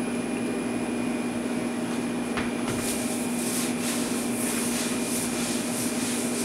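A steady machine hum, with a single click a little over two seconds in. From about three seconds in, a WypAll X80 wiper cloth rubs across a greasy flat-top griddle in rhythmic strokes, about two or three a second.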